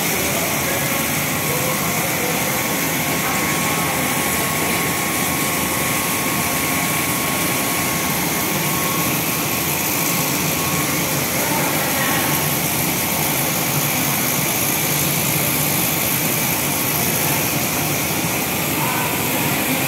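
Soya chunk making machinery running steadily, an even mechanical noise with a faint constant whine that fades out about two-thirds of the way through.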